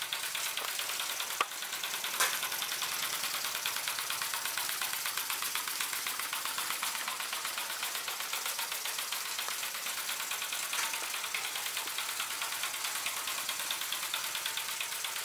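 Mamod Brunel live-steam vertical-boiler locomotive running along the track: a rapid, even chuffing and hiss from its small geared steam engine, with the clatter of its wheels and mechanism. Two sharp clicks come about one and a half and two seconds in.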